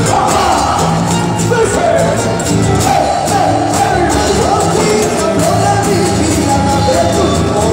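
Live Andean band playing a caporales: group singing over strummed strings, bass and a steady beat, amplified through a PA.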